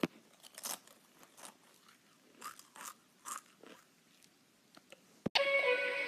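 Close-up crunching and chewing of a crisp snack chip, irregular crunches every half second or so. About five seconds in it cuts off suddenly and music with plucked strings starts.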